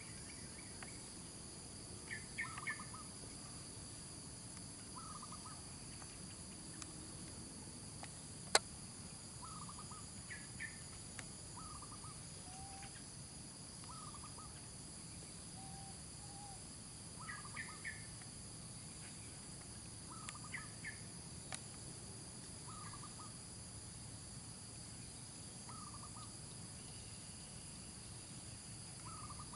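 Steady high-pitched insect chorus, with short chirping calls repeated every two or three seconds and one sharp click about eight seconds in.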